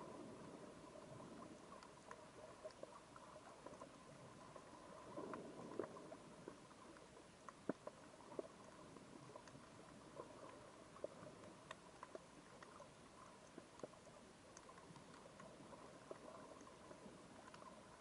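Faint underwater ambience through a camera housing: a low steady hiss with scattered small clicks and crackles, a few sharper ones about halfway through.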